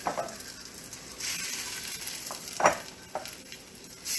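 Pieces of egg-and-cornstarch-coated beef being dropped by hand into a hot wok and sizzling. There are a few louder bursts of sizzle as more pieces land, the strongest about two and a half seconds in. The cook feels the heat was turned down too soon, so the meat is not sizzling as hard as it should.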